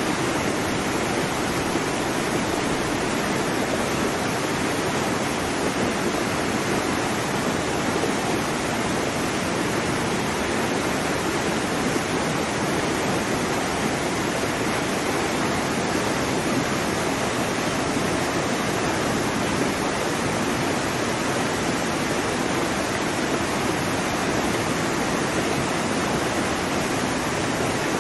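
Steady rushing water, an even unbroken hiss with no separate wave swells rising and falling.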